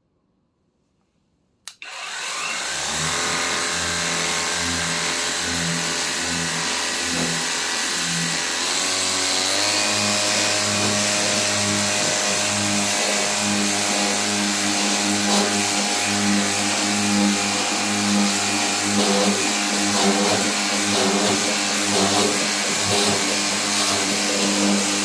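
Cordless high-pressure washer switching on about two seconds in, its motor and pump running steadily under a loud hiss of spray.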